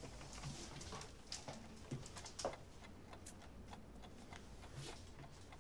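Quiet room tone with a low hum, broken by scattered faint clicks and light knocks at irregular moments.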